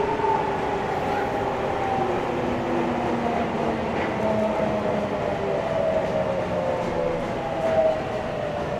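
Nagoya Municipal Subway 3050-series train running, heard from inside the car: steady running noise with a whine of several tones falling slowly in pitch as the train slows.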